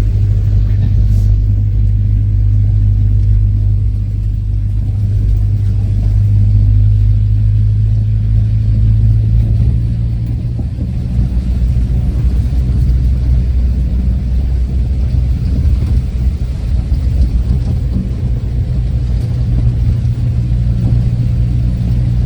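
Renault R10/R8 automatic's engine running with a steady low rumble; about ten seconds in its note drops lower and becomes rougher.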